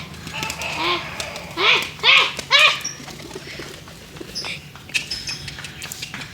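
Domestic pigeons with wings flapping and fluttering, and three short, loud calls that rise and fall in pitch, about half a second apart, near the middle.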